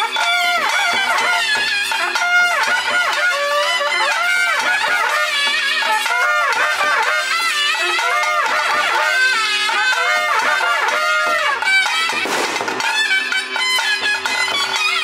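Traditional Tulu ritual music: a reed wind instrument plays a winding, ornamented melody over a steady two-note drone, with drum beats underneath.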